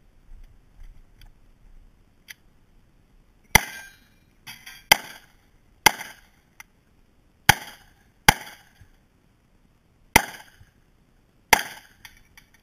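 Seven pistol shots from a Glock 17 9 mm, fired singly at uneven intervals of one to two seconds. The first comes about three and a half seconds in.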